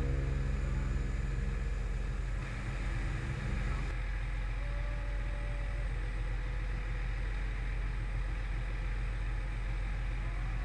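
Vehicle engine idling steadily with a low, even hum.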